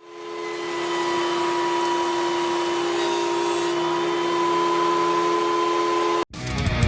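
Grizzly G0947 jointer's motor coming up to speed over about a second, then running steadily with a pitched whine over a rushing noise. It cuts off suddenly near the end, and music starts.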